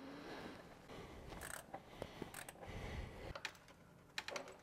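Hands working around a car's plastic intake manifold: faint rustling and scattered sharp plastic clicks as parts and connectors are handled, with a dull bump about three seconds in and a quick run of clicks near the end.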